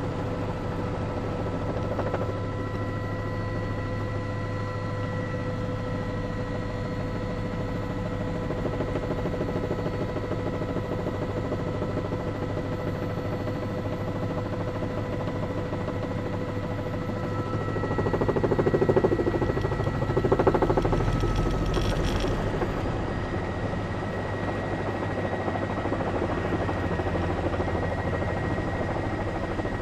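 Steady drone of a helicopter's engine and rotor, heard from inside its cabin, holding a few fixed tones throughout, with two brief louder swells about two-thirds of the way through.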